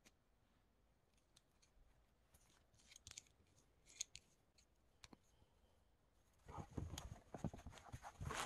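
Small metal tools being handled over fabric: a few faint, sharp clicks, then from about six and a half seconds in a denser patch of rustling and light knocking as the cloth and tools are moved about.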